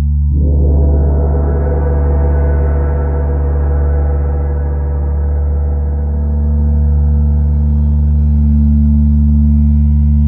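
Large gongs played with soft mallets: a steady deep drone throughout, and a gong struck about a third of a second in that opens into a dense stack of ringing overtones, swelling and then slowly fading.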